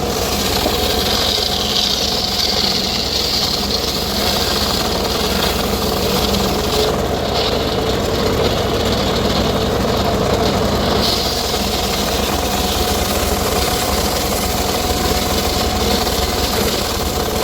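Circular saw rig running steadily while sawing teak wood. A higher whine rises over the machine's hum for the first few seconds and briefly again later.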